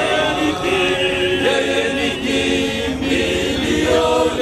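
Men's choir singing a Swahili hymn, holding long notes between the words.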